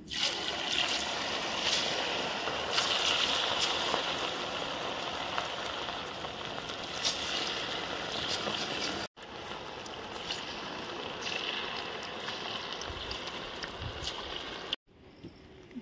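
Cornflour-coated chicken pieces deep-frying in hot oil: a steady hiss of sizzling with scattered crackles and pops. The sound cuts off abruptly about nine seconds in and again near the end.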